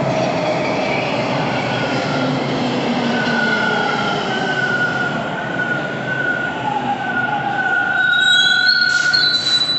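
TTC T1 subway train rolling into the station and braking toward a stop, its running rumble carrying a long, steady high-pitched wheel and brake squeal. A second, higher squeal joins near the end, where it is loudest.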